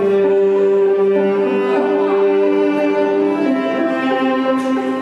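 Instrumental wedding processional music led by bowed strings, playing slow, long held notes that change pitch a few times.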